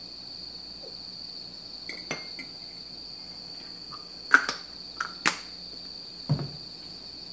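A few sharp clinks and taps of kitchenware on a stainless-steel counter as the honey bottle is lifted from the spoon and sauce dish, the loudest about four seconds in, and a duller knock near the end. A steady high-pitched whine runs under it throughout.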